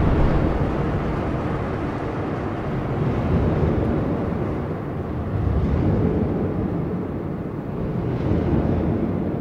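Designed slow-motion sound of a rifle shot through a suppressor: a deep, drawn-out rumble that swells and ebbs every two to three seconds.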